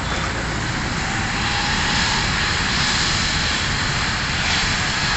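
Jet engines of an IndiGo Airbus A320-family airliner rolling along the runway: a steady rushing jet noise that grows slightly louder and brighter from about two seconds in.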